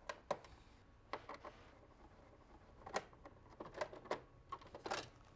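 Faint, irregular clicks and small knocks of a hand screwdriver turning screws out of a flat-panel TV's plastic back to remove its carry handle.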